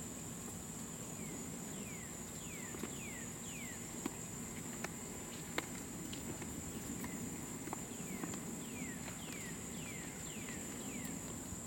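Steady high-pitched trilling of insects such as crickets, with a bird calling a run of short descending whistled notes twice. A few soft sharp clicks in the middle.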